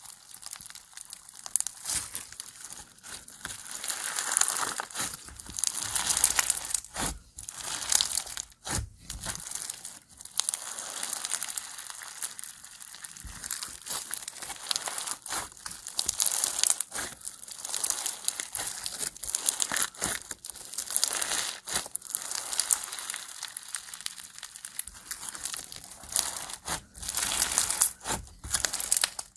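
Floam slime packed with small foam beads being stretched, pulled apart and squeezed by hand, giving a dense, irregular crackling and crunching.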